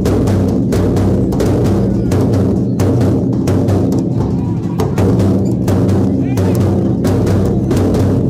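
Large barrel-shaped dhol drums beaten in a fast, dense, unbroken rhythm, loud, with a deep sustained low ring under the strokes.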